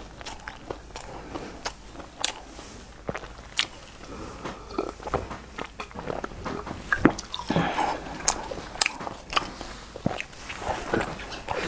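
Close-miked eating sounds: irregular chewing and mouth clicks on mouthfuls of toasted stuffed flatbread, a drink from a bottle about halfway through, and a bite into the flatbread near the end.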